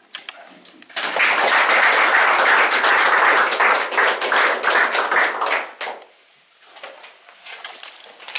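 A small audience applauding, starting about a second in and dying away about five seconds later.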